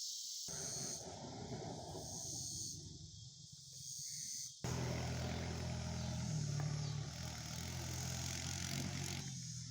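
Crickets chirring steadily in the background. About halfway through, the low, steady hum of a motor vehicle engine starts abruptly and runs on.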